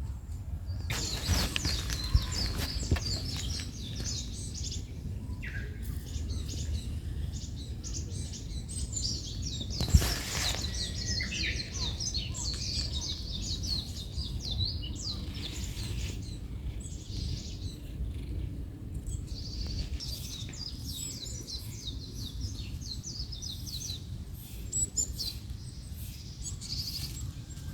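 Small birds chirping in a rapid, continuous chatter of high chirps over a low steady outdoor rumble. A few sharp knocks come through, the loudest about ten seconds in.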